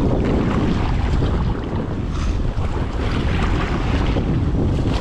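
Heavy wind buffeting the microphone over choppy sea, with waves slapping and splashing around a sit-on-top kayak.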